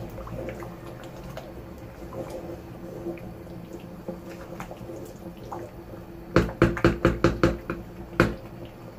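A wooden spoon stirs thick stew in a stainless steel pot with soft scrapes and small clicks. A little past halfway the spoon is knocked against the pot's rim, about eight quick sharp knocks, then one more shortly after.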